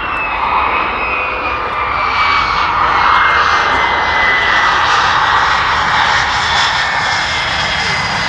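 F-35A Lightning II's single Pratt & Whitney F135 turbofan on landing rollout: a steady jet roar with a thin whine that slides slowly down in pitch.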